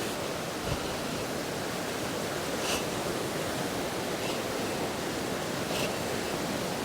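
A fast-flowing river rushing over rocks and rapids, a steady, unbroken wash of water noise; the river is running high after heavy rain.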